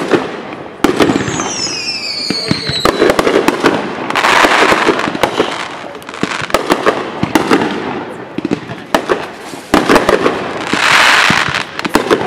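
Aerial fireworks display: shells bursting in a rapid series of sharp bangs and crackles, with falling whistles about one to three seconds in.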